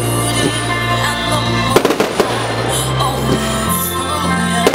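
Fireworks going off: aerial shells bursting with crackle, with two sharp bangs about two seconds in and another near the end, over music with steady bass notes.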